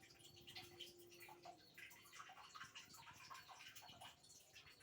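Near silence with faint scattered drips and small splashes of water, and a faint steady tone during the first second and a half.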